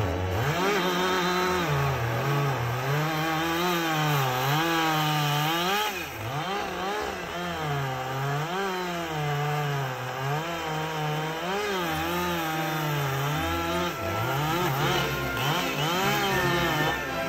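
Gas chainsaw cutting through a thick maple trunk, its engine pitch rising and sagging over and over under the load of the cut. It eases off briefly about six seconds in and again near fourteen seconds.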